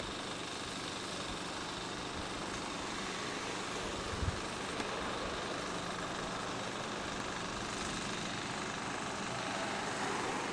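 A vehicle engine idling steadily under an even hiss, with a small knock about four seconds in.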